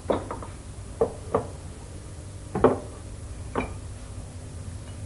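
Light knocks and clinks of glasses and a bottle being handled as drinks are served, about six separate sharp taps spread over the first four seconds.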